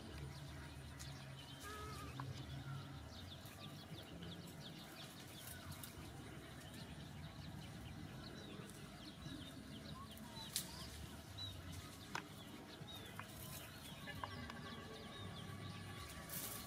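Faint outdoor ambience with many short, high chirps of small birds scattered throughout over a low background rumble, and a few sharp clicks, the loudest about ten and a half seconds in.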